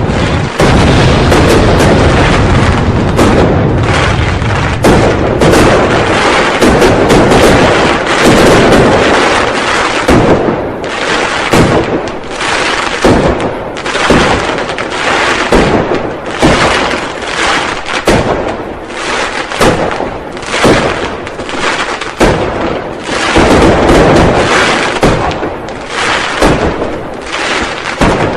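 Firecrackers and fireworks going off in a dense, continuous barrage of bangs, thinning after about ten seconds into separate loud bangs with short gaps between them.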